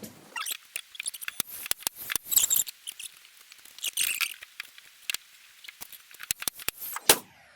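Nail gun being loaded with nails: a run of sharp clicks and rattles with a couple of brief scrapes, and a louder click near the end.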